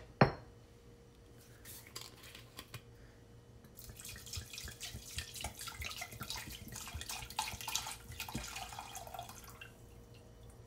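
A sharp click about a quarter second in, then a dark liquid poured from a bottle into a stainless steel saucepan for about six seconds, splashing, turning lower and fuller near the end before it stops.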